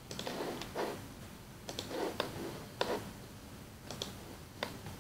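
Computer mouse clicking: a series of sharp single clicks, irregularly spaced and some in quick pairs, as edges are picked one by one in the CAD program.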